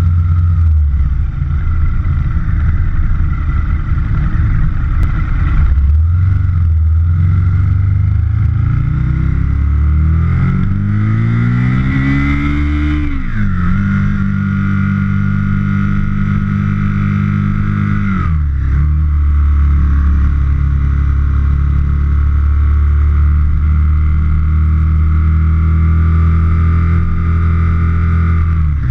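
2004 Aprilia Futura's V-twin engine heard from the tank while riding. It revs up steadily from about six seconds in, drops in pitch on a gear change about halfway through, dips briefly again a few seconds later, then holds a steady cruise.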